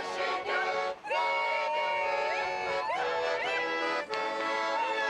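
Folk ensemble singing a Cossack-style song: several voices hold long notes and slide between pitches, over instrumental accompaniment.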